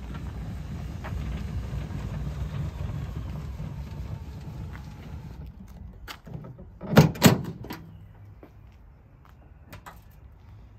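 A roller tonneau cover on a Mazda BT-50 ute rolls back along its rails with a steady low rolling noise that stops about five seconds in. About seven seconds in come two loud clunks a fraction of a second apart as the tailgate is unlatched and dropped open, then a few light clicks.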